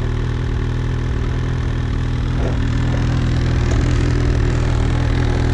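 Ski-Doo snowmobile engine idling steadily.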